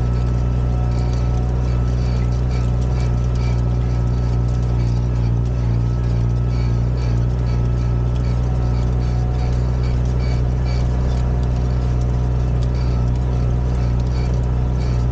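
Tractor diesel engine running steadily under load as it pulls a rotary hoe, heard close up from the bonnet, with faint irregular clicking above the engine note.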